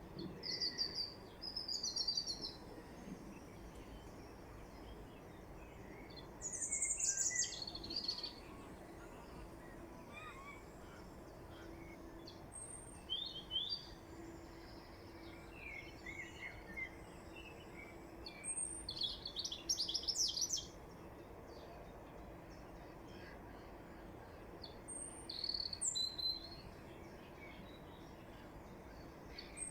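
Wild songbirds singing and chirping, in short separate phrases every few seconds, over a steady outdoor background with a faint low hum.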